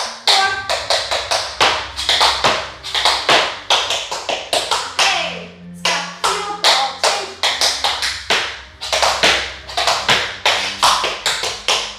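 Tap shoes striking a hard floor in quick, rhythmic runs of taps, with brief breaks between phrases: tap dance footwork.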